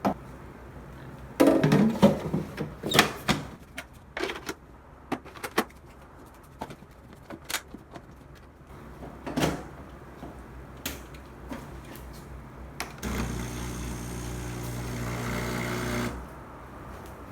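Clicks and knocks of the Breville 870 espresso machine being handled. About thirteen seconds in, its newly fitted 60 Hz Ulka vibratory pump runs with a steady hum for about three seconds, growing slightly louder, then cuts off.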